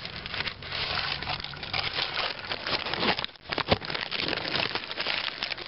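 Paper food wrapper rustling and crinkling as it is handled around a hard-shell taco, with a couple of sharp clicks a little over halfway through.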